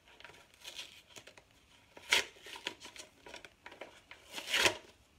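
Paper rustling and crinkling close to the microphone as a folded letter is unfolded and handled, with two louder rustles, one about two seconds in and one near the end.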